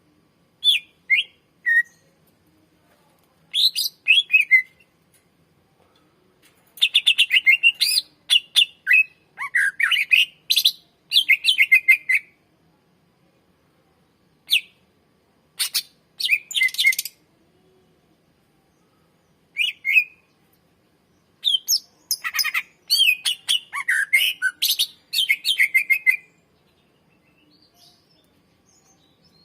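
Greater green leafbird (cucak ijo) singing in bursts of quick, sweeping whistled notes and fast chattering phrases, separated by pauses of a second or two.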